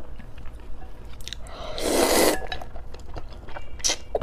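A person chewing and eating close to the microphone, with small wet mouth clicks and a longer, louder rushing mouth sound about two seconds in.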